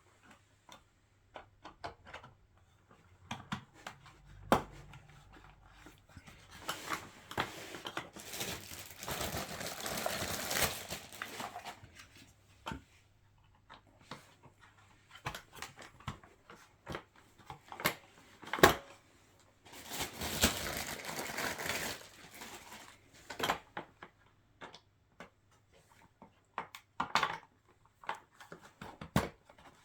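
Plastic parts of a baby walker being handled and pressed together as anti-slip pads are pushed into the base: scattered clicks and knocks, with two longer stretches of rustling and scraping, about 7 and 20 seconds in.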